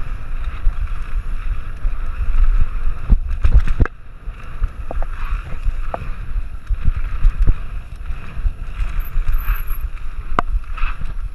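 Mountain bike descending a dirt trail at speed: wind buffeting the microphone over steady tyre rumble, with the bike rattling and sharp knocks as it hits bumps, three of them standing out.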